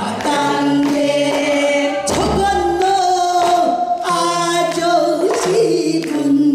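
Several women singing Korean traditional vocal music together through microphones, with long held notes that bend and waver in pitch. A sharp strike cuts in about two seconds in and again about four seconds in.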